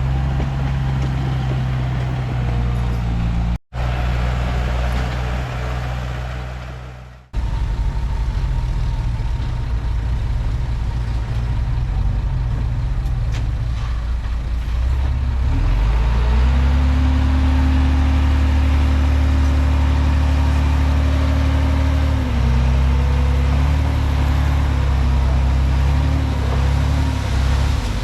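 Komatsu D31P bulldozer's diesel engine running steadily, with two brief dropouts about four and seven seconds in. About halfway through, the engine note rises and then holds higher.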